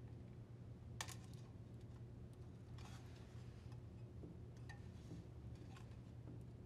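Faint scattered clicks and a brief rustle of plastic wire-harness retaining clips and wires being worked loose from a washer transmission housing by hand, the sharpest click about a second in.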